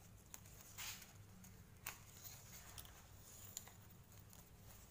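Near silence with faint rustling and soft ticks of palm-leaf strips being handled and threaded while weaving a tipat, with two slightly louder rustles about one and two seconds in.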